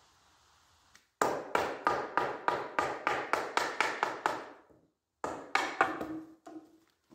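Rapid hammer blows, about four a second, knocking a wooden rail down into a notched joint of a 2x4 bench frame. The blows start about a second in, stop briefly, then come again in a shorter run.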